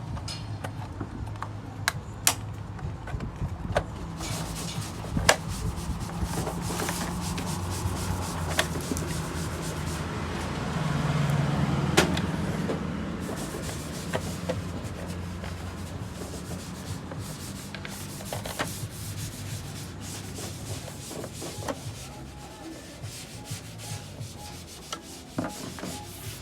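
Parts of a copier drum unit being handled and fitted as a new cleaning blade goes in: rubbing and scraping with scattered sharp clicks, over a low steady hum. A louder scrape comes about halfway through and ends in a sharp click.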